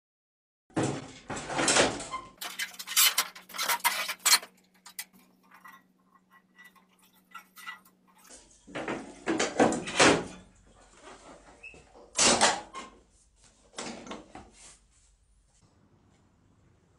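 Clunks and rattles from the body panels and hinged seat of an Elektron scooter as they are opened and handled, in several bursts. A faint steady hum runs for several seconds in the middle.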